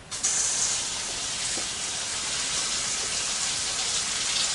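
Kitchen faucet turned on about a quarter second in, its water running steadily onto canned chickpeas in a colander to rinse them.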